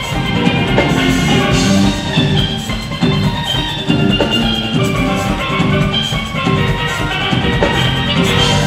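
Two steelpans playing a lively melody together, with bright ringing notes in quick runs, backed by a drum kit keeping a steady beat and a bass guitar.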